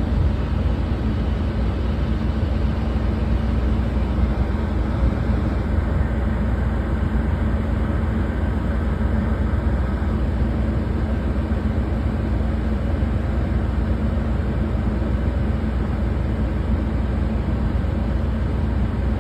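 Ship's engine running steadily: a deep, even rumble with a steady hum over it.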